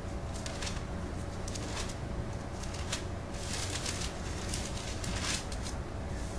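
Paper rustling and soft crackles of Bible pages being leafed through, in irregular short bursts that are busiest past the middle, over a steady low room hum.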